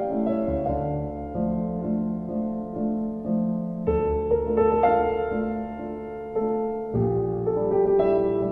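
Background piano music: slow, sustained chords over a low bass note that changes about every three seconds.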